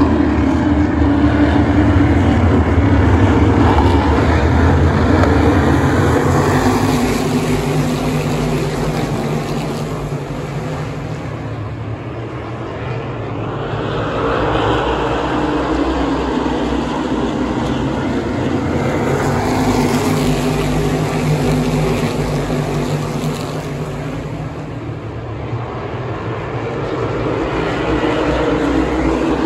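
A field of asphalt modified race cars running slowly two-wide under caution, their engines droning at low revs. The sound swells and fades twice as the pack laps the oval.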